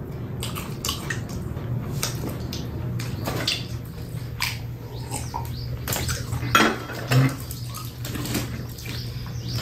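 Scattered clicks, clinks and rustles of eating: fried chicken picked from a foil-lined metal tray, and a mug and dishes handled, over a steady low hum.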